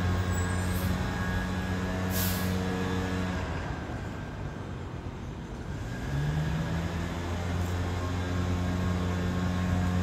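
An engine running with a steady low hum that fades somewhat in the middle and rises in pitch about six seconds in. A short hiss comes about two seconds in.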